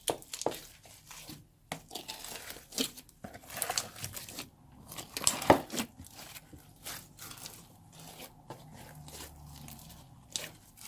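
A large mass of clear glue slime being pulled apart and moved into a bowl, giving irregular crackling and tearing sounds, the loudest about five and a half seconds in. The slime has come out a little stiff, so it tears rather than flows.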